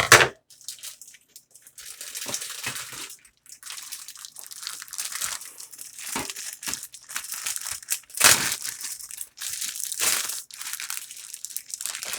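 Plastic meat packaging crinkling and tearing as it is cut open and pulled away from a pork roast, starting with a sharp snap and with louder rustles about eight and ten seconds in.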